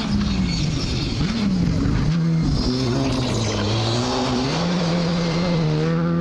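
Rally car engine on a gravel stage, revving hard as the car passes, its pitch climbing and dropping repeatedly with gear changes and lifts off the throttle.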